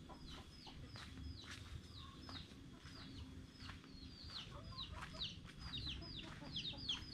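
Free-range village chickens calling: many short, high-pitched calls that fall in pitch, several a second, coming faster near the end.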